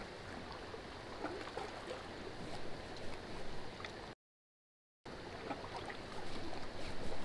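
Steady rush of river water below a dam spillway, with faint scattered clicks from a spinning reel being cranked. The sound drops out completely for just under a second, a little past four seconds in.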